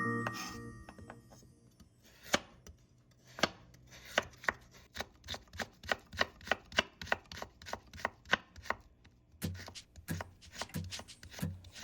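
Kitchen knife chopping on a cutting board, a steady run of single sharp knocks about two to three a second, with a brief pause near the end. The tail of background music fades out at the start.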